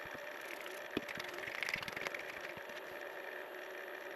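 Wood lathe running with a steady low hum. A single sharp click comes about a second in, followed by about a second of faint ticking.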